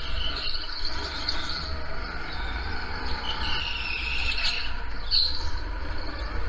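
Onboard sound of a go-kart running through corners on a wet track: a steady low rumble of wind on the camera's microphone and the kart running. A thin high-pitched tyre squeal is heard, the longest from about three to four and a half seconds in, falling slightly, with a shorter chirp just after.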